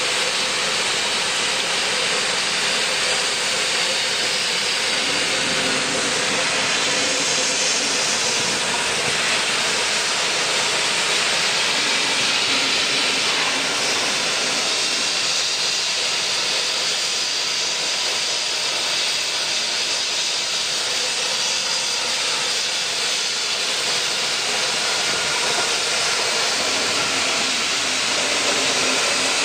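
Steady hiss of steam escaping around the cylinders of a Beyer Peacock NRZ class 16A Garratt steam locomotive.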